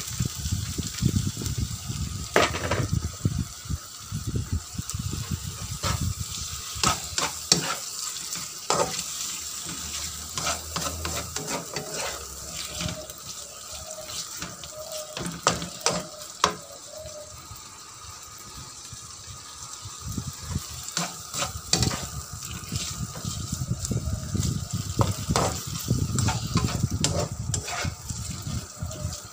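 Sliced beef frying in chili spice paste in a pan, sizzling while a spatula stirs and scrapes it, with frequent sharp knocks of the spatula against the pan.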